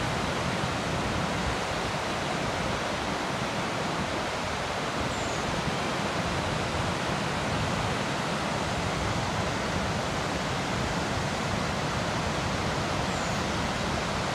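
Gullfoss waterfall: a loud, steady rush of falling water.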